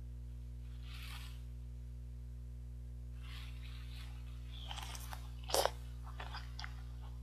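Crisp, wet crunching as teeth bite into a peeled oriental melon (chamoe), a cluster of crunches from about three seconds in with the loudest just past five seconds, then a few small clicks. A steady low electrical hum runs underneath.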